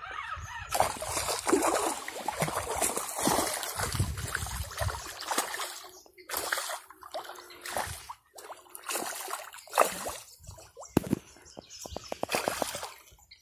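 A hooked snakehead thrashing at the water surface on a lure line, making a run of irregular splashes and sloshes. The splashing is busiest in the first half and breaks into separate splashes later.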